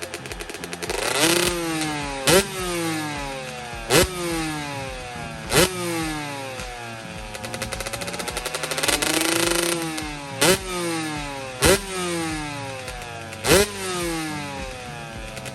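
2005 Kawasaki KX125's two-stroke single-cylinder engine revved in short, sharp throttle blips about every one and a half seconds, the revs falling away after each one. Around the middle there is one longer, slower rise and fall in revs.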